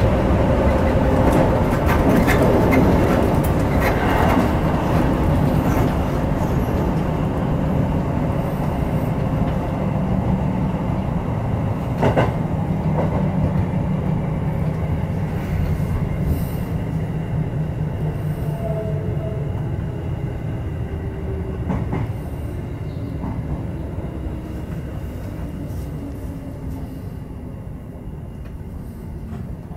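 Electric commuter train heard from the driver's cab, rolling over points and rail joints with occasional sharp wheel clicks, then slowing to pull into a station: the running noise fades steadily and a faint hum falls slightly in pitch.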